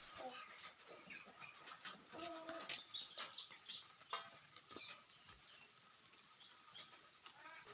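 Faint chirping of small birds, with a brief lower call and a few light clicks and knocks.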